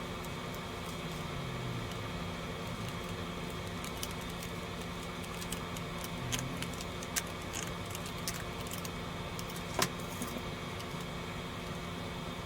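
Steady low hum and hiss with a few scattered light clicks and taps, the loudest one late on.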